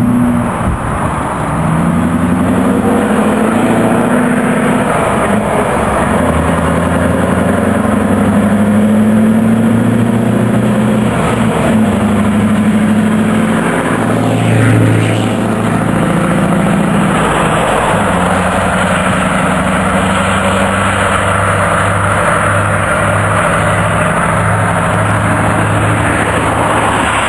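Scania R500's V8 diesel engine pulling away and accelerating, its pitch rising and falling again through several gear changes. About halfway through, the sound swells briefly as the truck passes close by, then settles into a steadier run.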